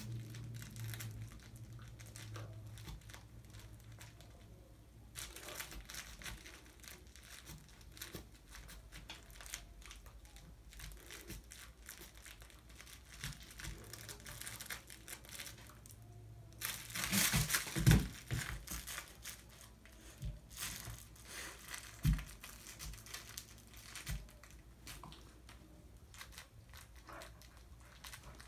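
A dog chewing and tearing at a crinkly toy: intermittent crinkling and crackling, with a louder flurry and a thump about seventeen seconds in and another thump a few seconds later.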